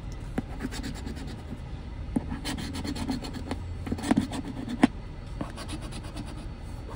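A coin scraping the latex coating off a scratch-off lottery ticket in quick back-and-forth strokes, heaviest from about two to five seconds in. A sharp click comes just before five seconds, the loudest moment.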